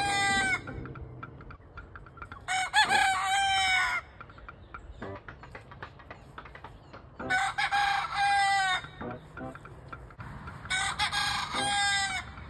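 Two-month-old Leghorn cockerels crowing: three full crows, each about one to two seconds long, plus the end of one just after the start, with faint clucks between them.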